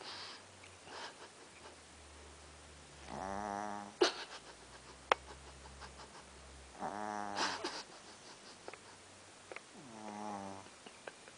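Snoring: three drawn-out buzzing snores about three and a half seconds apart, with a few sharp clicks between them.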